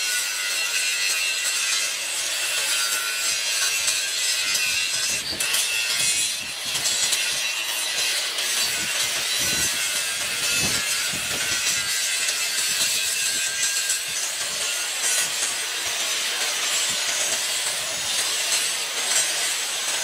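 Corded electric angle grinder running with its disc against a steel bar: a steady, hissing grind of abrasive on metal with the motor's whine.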